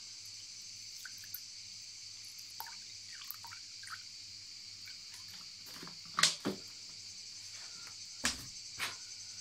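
Bottled water poured in a thin stream into a stainless steel saucepan, with faint splashing and dripping, then four sharp knocks in the last few seconds. A steady high hiss lies under it all.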